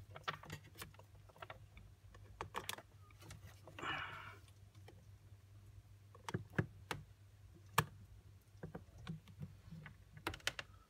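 Scattered light clicks and taps as multimeter test probes and their leads are handled and touched against the screw terminals and plastic of a heating system wiring centre.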